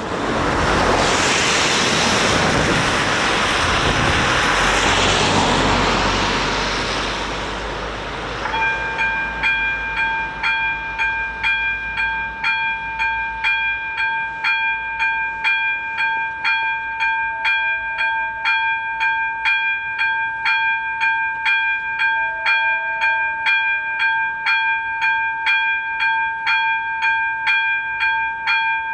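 A car's tyres hissing over the wet road as it passes, fading out by about eight seconds in. Then the level-crossing warning starts: its AŽD ZV02 electronic bell strikes a ringing tone about twice a second, the signal that a train is approaching.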